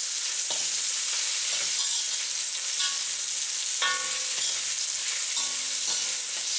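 Chicken and vegetables sizzling in hot oil in a wok as they are stir-fried, with a steady hiss. The spatula scrapes and knocks against the pan about once a second, some strokes with a brief ring.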